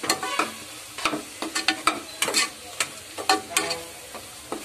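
A metal ladle scraping and knocking against a metal cooking pot while stirring a thick onion-tomato masala, in irregular strokes about two or three a second, some with a brief metallic ring. The spice powders (chilli, coriander, turmeric) are being mixed into the masala.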